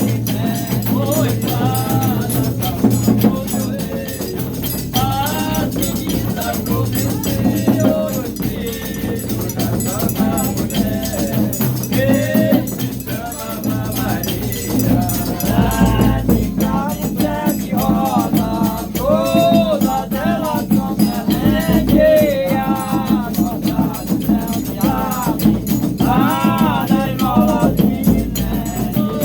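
Reisado folk song: voices singing a melody over fast, steady shaking of rattles or maracas and a sustained low accompaniment.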